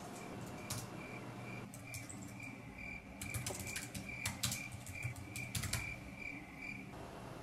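A cricket chirping in a steady run of short, same-pitched chirps, two or three a second, starting about a second in and stopping near the end. Faint scattered clicks and taps sound alongside.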